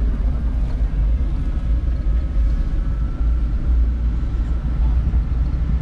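Steady low rumble of a moving vehicle, road and engine noise at an even level, with a faint thin high tone for a couple of seconds in the middle.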